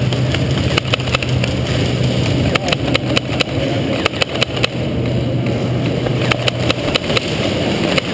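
Irregular sharp snaps of airsoft guns firing and BBs striking, in a large concrete warehouse, over a steady low hum that fades out about seven seconds in.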